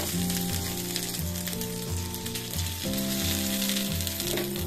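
Butter sizzling on a hot nonstick tawa as halved pav buns toast in it, a steady frying hiss, with background music underneath.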